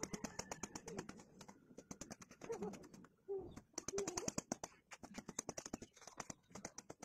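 A dove cooing several times in short, wavering low calls, over a fast, steady ticking.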